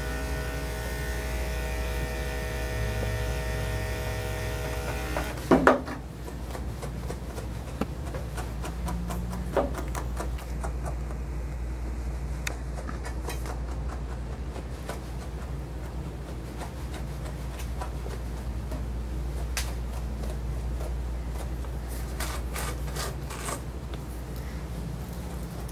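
Electric dog grooming clippers with a #10 blade running at a steady pitch, then switched off about five and a half seconds in. After that, quieter rubbing of a brush through the puppy's matted coat with a few light clicks, over a steady low hum.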